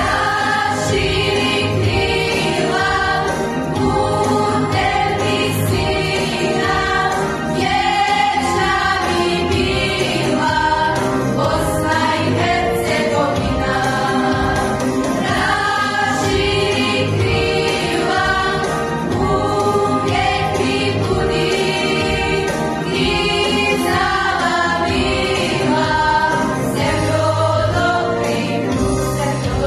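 A choir singing a song with instrumental accompaniment and a steady beat.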